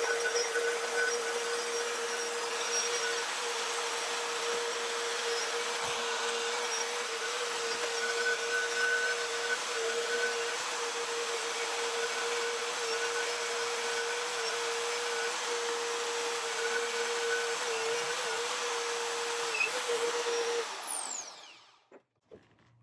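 FEIN magnetic drill running steadily under load, its large twist drill bit cutting a hole through steel plate with a constant motor whine over the cutting noise. Near the end the motor is switched off and winds down with a falling whine.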